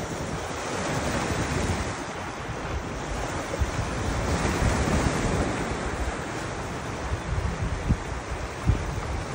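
Surf washing on the shore in a steady roar of noise that swells and eases, with wind buffeting the microphone in a few low thumps near the end.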